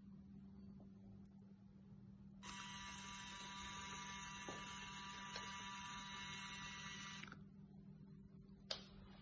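Small DC drive motors of an Arduino Bluetooth robot car running with a steady whine for about five seconds as the car drives forward, then cutting off as it stops. A single sharp click comes near the end.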